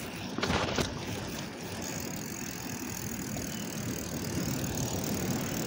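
Wind buffeting a phone's microphone during a bicycle ride, a steady rushing noise with a brief louder gust about half a second in.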